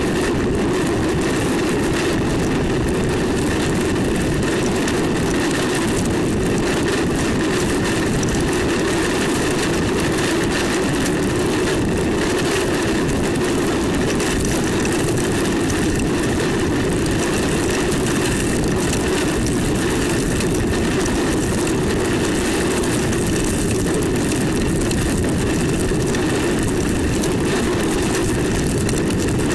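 Steady, loud rushing roar of tornado winds over the camera probe.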